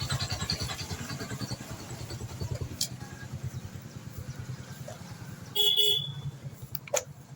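Motorcycle engine running with a steady low pulse, and a short horn beep about five and a half seconds in.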